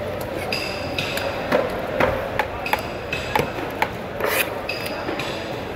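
Long fish knife cutting tuna steak into chunks on a wooden chopping block: rasping strokes through the flesh and about half a dozen sharp, irregular knocks as the blade strikes the board.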